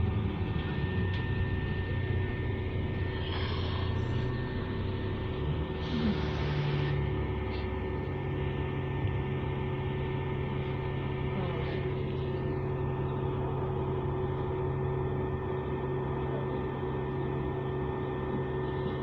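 Bus engine and drivetrain heard from on board, running with a constant whine over a low drone; the engine note changes about six seconds in, then holds steady. The bus is billed as sounding knackered, worn and rough.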